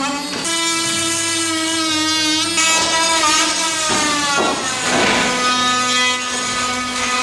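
Cordless drill running while boring into a wall: a loud motor whine whose pitch steps up and down several times as the bit loads and frees, with gritty drilling noise at moments.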